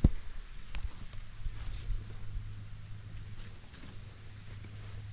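Insects calling: a steady high-pitched hiss with a short, high chirp repeating about three times a second. Right at the start there is one sharp snap or step, then a few faint rustles.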